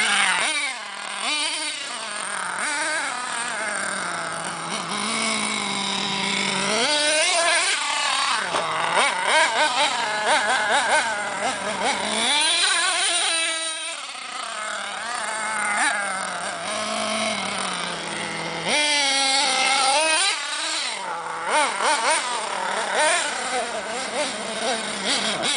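HPI Savage X 4.6 nitro RC monster truck's small 4.6 cc two-stroke glow engine revving up and down as it is driven. Its high-pitched whine rises and falls again and again, with several sharp climbs in pitch.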